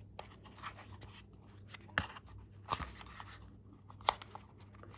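Hands handling a plastic earbud charging case and its cardboard box. Soft rustling and scraping, with a few sharp clicks and taps about two, three and four seconds in.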